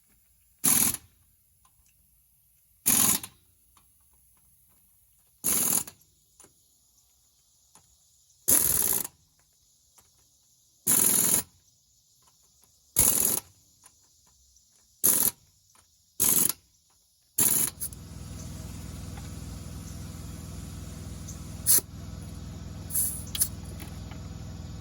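About nine short bursts from a power tool on the wheel's lug nuts, roughly every two seconds. About eighteen seconds in, a steady background noise starts, with a couple of sharp clicks.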